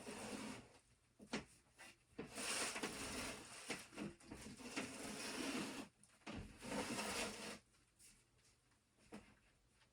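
Rustling and scraping of things being handled and slid around, with scattered light knocks, as a small room is cleared out; the noise comes in three stretches, the longest lasting a few seconds.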